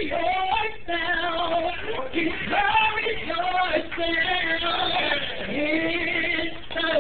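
A woman singing into a handheld microphone, holding long notes with a wavering vibrato.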